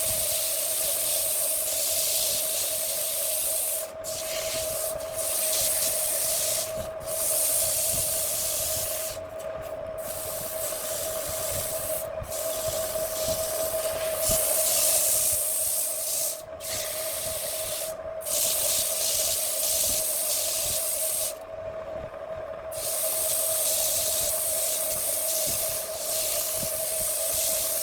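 Handmade wood lathe running with a steady hum while a tool or abrasive works the spinning wood, a loud hissing scrape that breaks off briefly several times and starts again.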